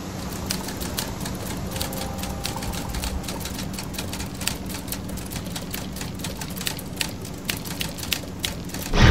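Raindrops tapping on a hard surface close to the microphone, a quick irregular patter of sharp clicks, over a steady low hum.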